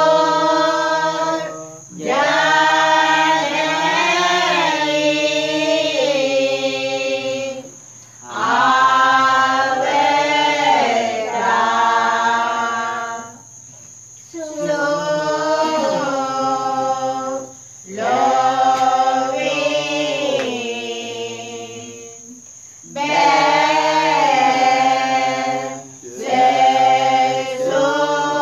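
A group of voices singing Pasan, the Sinhala Catholic Lenten passion hymns, unaccompanied, in long drawn-out phrases with a short pause for breath between each.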